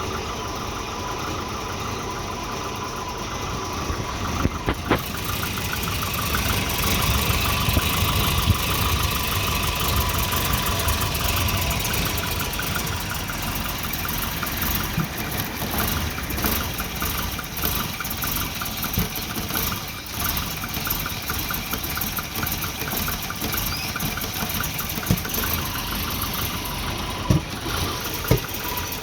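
Volvo 240 engine idling roughly, with a few sharp clicks about four seconds in and near the end. The rough idle comes from a failing exhaust oxygen sensor giving erratic readings.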